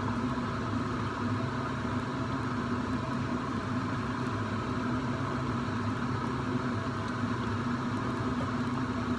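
Steady low hum of a kitchen appliance motor, with a constant low tone and no change in level.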